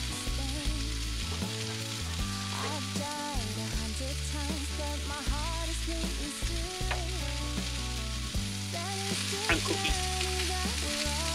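Steady sizzling hiss from a lit portable two-burner gas camp stove fed from a small gas bottle, over background music with a bass line and melody.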